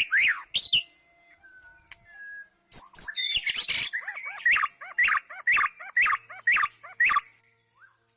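White-rumped shama singing loud, varied whistled phrases. After a short pause and a dense burst, it repeats one swooping note about twice a second for several seconds, then falls quiet.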